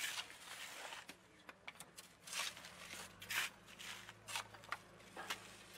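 Shovels and hoes scraping and knocking at volcanic ash and mud on an asphalt road, faint and in irregular strokes, over a faint low hum.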